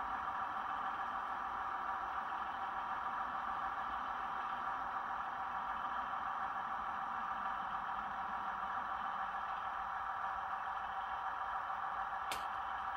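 Model trains running on the layout, a steady hum and rattle from the motors and wheels on the track, with a single sharp click near the end.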